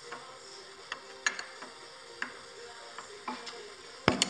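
Metal wrench clinking against the front of a lathe spindle in a few separate sharp clicks, ending in a louder clatter.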